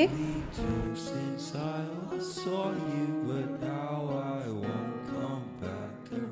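Background music: a melody gliding over held notes, with a few light percussive hits.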